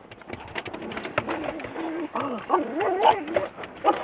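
A pug whining and grumbling in a wavering, bending pitch from about two seconds in, unhappy at the car wash. Under it, the steady hiss and spatter of car-wash water spraying against the car.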